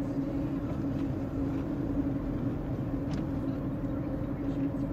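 Steady engine drone and tyre noise heard from inside a vehicle cruising along a paved road, with a constant low hum.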